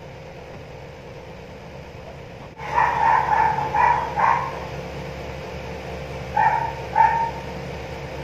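Pet dogs barking in two short runs, about three barks and then two more, over a steady low hum. The dogs bark at anyone passing in front of the house.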